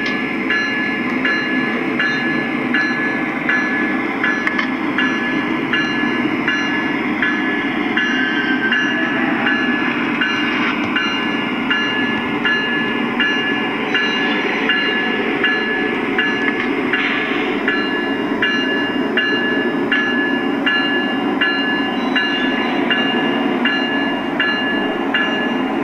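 Lionel O gauge ES44 diesel locomotive running on the layout, its onboard sound system playing a steady diesel engine rumble. A regular clicking comes about twice a second throughout.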